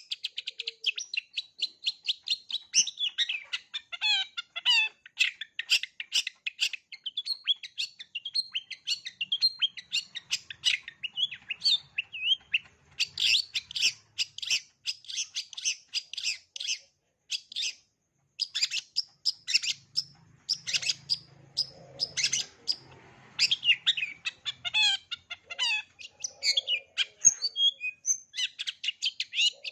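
Long-tailed shrike (cendet) singing a fast, varied stream of chirps, trills and mimicked calls of other birds, with one short pause just past the middle.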